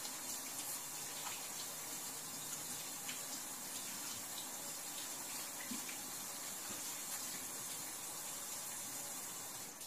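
Kitchen faucet running steadily into a stainless-steel sink while hands are washed under the stream. The water is shut off suddenly near the end.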